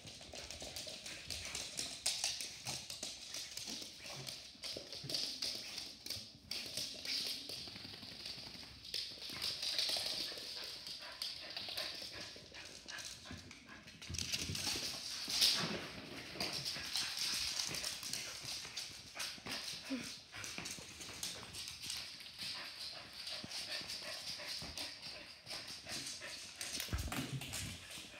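A wet dog's claws clicking and scrabbling rapidly on a hardwood floor as it dashes and skids around in a burst of post-bath zoomies, loudest about halfway through.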